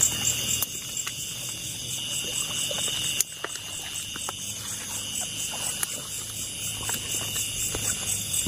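Night chorus of insects in a rice field: a steady high drone with a pulsing higher trill over it, typical of crickets, and a few faint clicks and rustles mixed in, one sharper click about three seconds in.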